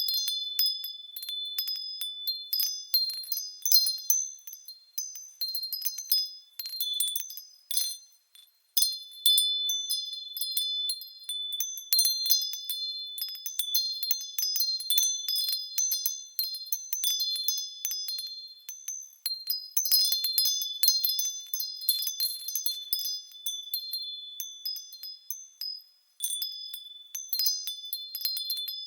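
Japanese fūrin wind chimes ringing as they sway in the wind: a continual, irregular jingle of high, clear tones with brief lulls about eight seconds in and near the end.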